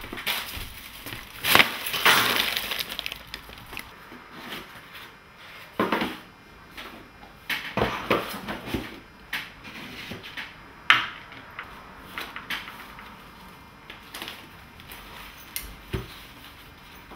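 Irregular crackling and crunching handling noises: scattered sharp crackles, with a dense crackly stretch about one and a half to three seconds in and a single loud snap about eleven seconds in.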